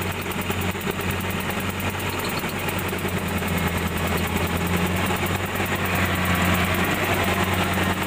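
Kubota DC-70 Plus combine harvester diesel engines running steadily: a deep, even hum that grows slightly louder toward the end.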